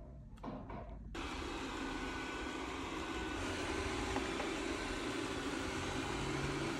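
Xiaomi Robot Vacuum S10 running: a steady motor whir with a low hum, starting up again about a second in after a brief quieter moment.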